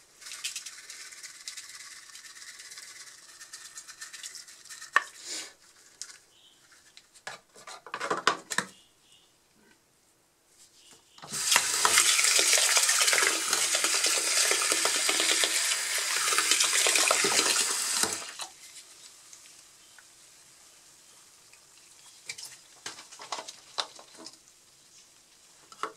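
Washing powder being poured into a shallow basin of water with a soft sandy hiss. About eleven seconds in, a tap runs hard into the basin for about seven seconds, splashing and foaming the mix, then stops suddenly.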